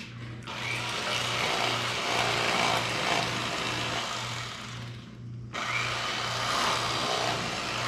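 Electric fillet knife running with a steady hum as its blades saw through a walleye fillet. The cutting noise breaks off briefly about five seconds in, then starts again.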